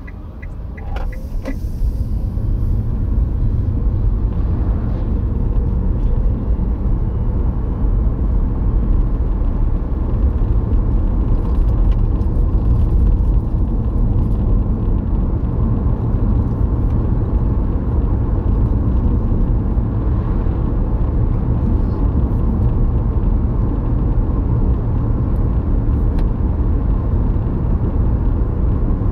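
Car driving, heard from inside the cabin: a steady low rumble of road and engine noise that swells over the first few seconds as the car speeds up, then holds.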